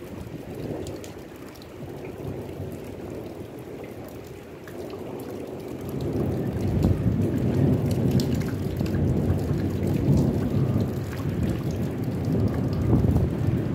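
Thunder rumbling, growing louder about six seconds in and rolling on steadily, with rain falling throughout.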